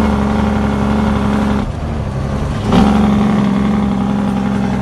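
Heavy truck's diesel engine running, heard from inside the cab. The engine note drops back about a second and a half in, then picks up again strongly about a second later.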